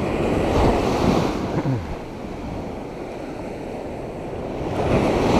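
Sea surf breaking and washing up the sand in shallow water. The wash swells over the first two seconds, falls back, and builds again near the end.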